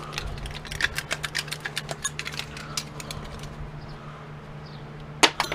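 Rapid, irregular clicks and taps of small metal and plastic parts being handled while stripping an electric typewriter's circuit board with snips, growing sparser after about three seconds, with two sharp clicks near the end. A steady low hum runs underneath.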